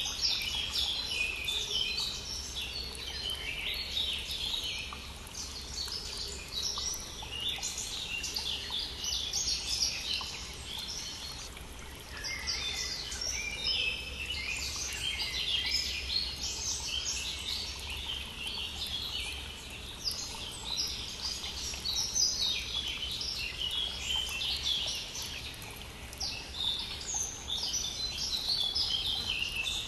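Many songbirds singing at once in a spring chorus, dense overlapping chirps and trills with no break, over the steady sound of a flowing brook.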